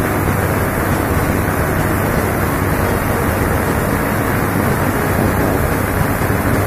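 Spark gap Tesla coil firing continuously: a loud, steady buzzing crackle of sparks and streamers with a strong low hum underneath.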